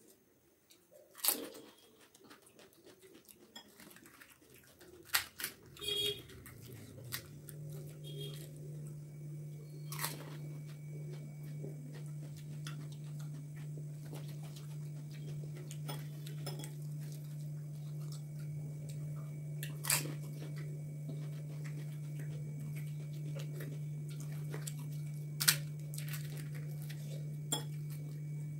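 Crisp panipuri shells being cracked open and crunched while eating: a few sharp cracks several seconds apart, with quieter crunching and chewing between. A steady low hum comes in about seven seconds in and stays underneath.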